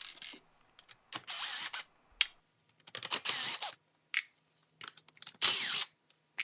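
Screws being backed out of a melamine epoxy mold: three short bursts of grinding, each under a second, the loudest near the end, with small clicks between.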